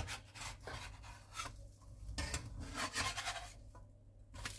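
Plastic slotted spatula scraping and sliding under a pancake in a non-stick wok in a run of irregular short strokes, working it loose to flip it.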